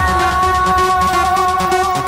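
Background electronic music: held synthesizer chords over a fast ticking beat.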